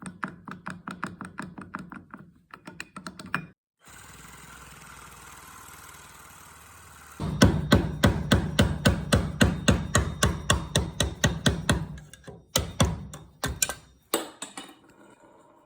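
Rapid, regular strokes of hand-tool work on the metal bushing of a Piaggio Boxer variator torque driver, about four to five a second, in two runs: a lighter one, then a louder one about seven seconds in. A steady faint hiss fills the pause between them.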